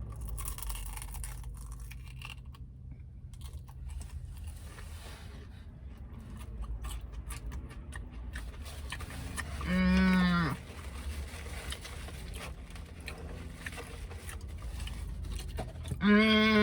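A woman burping loudly twice: a drawn-out burp about ten seconds in and another near the end, each under a second long, holding one pitch and dropping at the end.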